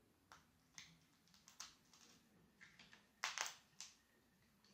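Faint, scattered clicks and crackles of a cooked crab being picked apart by hand, shell pieces cracking as the meat is pulled out, with the loudest cluster of cracks about three seconds in.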